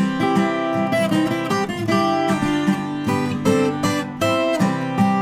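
Viola caipira, the ten-string Brazilian folk guitar, playing a melody of plucked notes mixed with strummed chords.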